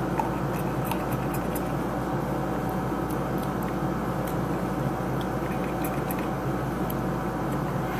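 Steady room hum with a faint constant tone, broken only by a few faint small clicks in the first couple of seconds.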